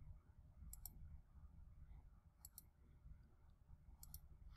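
Three faint computer mouse clicks, each a quick double snap, about a second and a half apart, over near silence.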